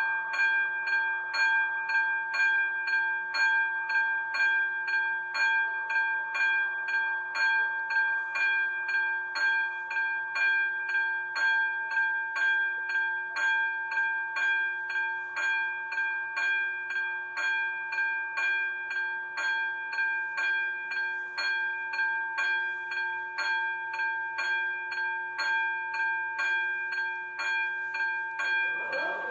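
Level-crossing warning bell ringing in fast, evenly repeated strikes over a steady ringing tone, sounding with the flashing red lights to warn that a train is approaching and the crossing is closing.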